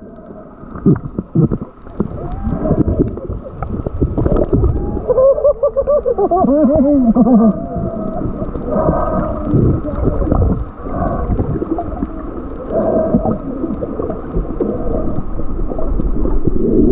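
Muffled underwater sound from a submerged camera housing: water churning and knocking against the housing with a low rumble. About five to seven seconds in come a few wavering, warbling pitched sounds.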